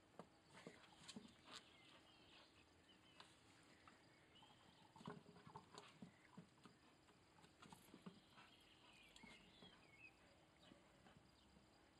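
Faint sniffing, snorts and soft knocks as a dog roots with its nose and paws for a ball inside a rubber tyre.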